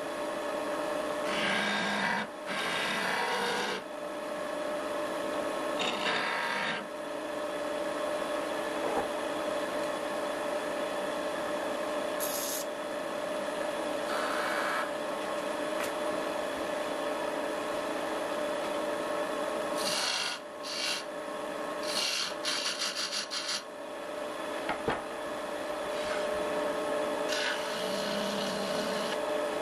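Wood lathe running with a steady hum, a turning tool scraping against the spinning wooden blank in several short passes.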